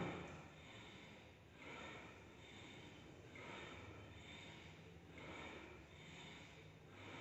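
Faint, forceful breathing from a man working a cable crossover machine, a noisy breath roughly every second and a half to two seconds in time with his chest reps.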